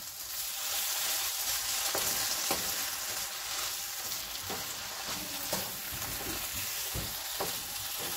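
Okra in masala sizzling in a nonstick frying pan with a steady hiss, a little water just added to the hot spices. It is being stirred, and the utensil scrapes and taps against the pan at irregular moments.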